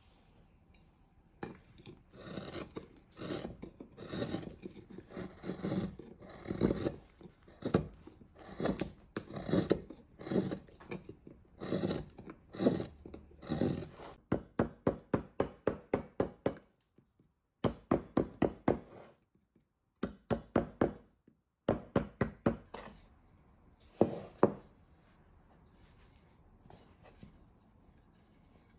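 Hand carving gouge paring hard wild cherry wood: a series of scraping cuts, about one or two a second, then a run of quicker, shorter cuts broken by sudden gaps. A few last cuts come about three quarters of the way in, and then it goes quiet.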